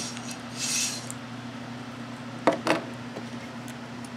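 Small plastic Lego bricks being handled and pressed together, with two sharp clicks about two and a half seconds in and a short hiss near the start, over a steady low hum.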